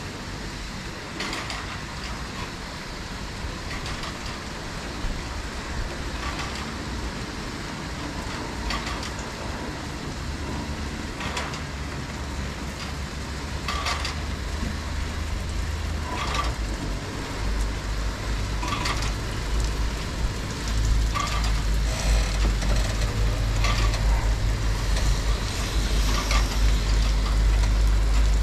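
Christ Cadis rollover car wash in its polish stage: a steady hiss of liquid spraying onto the car over the gantry's running machinery, with a short click about every two and a half seconds. A deeper rumble builds about halfway through and grows again near the end as the wash moves into brush polishing.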